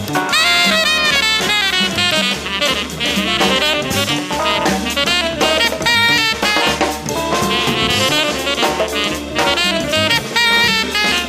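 Mobile phone ringtone playing: a jazzy tune with a horn-like melody over a drum beat and bass.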